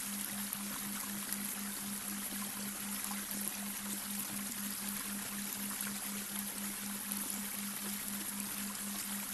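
Babbling brook running steadily, mixed with a low humming tone that pulses about four times a second: a delta-wave binaural beat.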